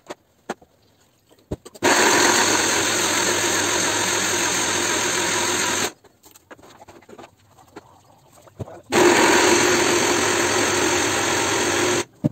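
Small electric blender with a short grinder jar chopping fresh coconut pieces, the motor running at a steady pitch in two runs of about four and three seconds. Between the runs there are small knocks and clicks as the jar is handled off and back onto the base.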